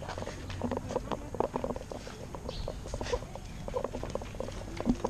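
Busy street ambience: scattered light clicks and taps, like footsteps and small knocks, with faint indistinct voices in the background.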